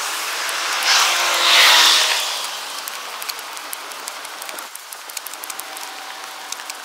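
A road vehicle passing by: tyre and engine noise swells to its loudest a second or two in, then fades, leaving faint scattered clicks.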